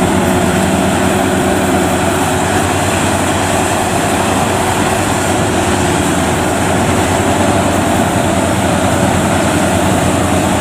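Tracked rice combine harvester running steadily while cutting and threshing rice: a loud, even engine and machinery drone with a constant low hum.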